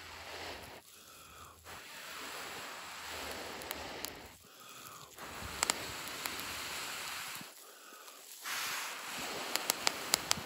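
A person blowing long, steady breaths into a smouldering punk-wood ember in a tinder bundle, three blows with breaths drawn in between. Sharp crackles come near the end as the tinder starts to catch flame.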